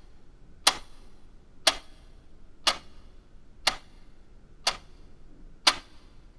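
A clock ticking, one sharp tick a second.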